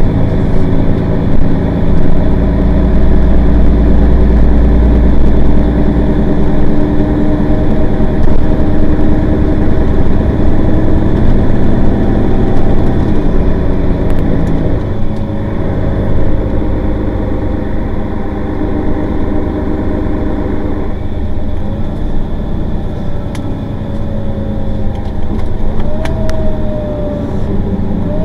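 Mercedes-Benz Citaro Facelift city bus engine running under load as the bus drives. The engine note changes step-wise a few times, and in the second half a whine glides down in pitch, rising again near the end.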